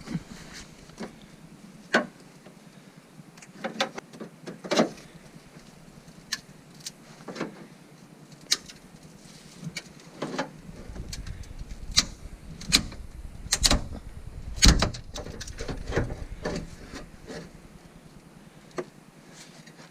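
Crowbar prying and knocking at a truck's bent sheet-metal fender: irregular sharp metal knocks and clanks, the loudest ones in the second half, with a low rumble underneath in the second half.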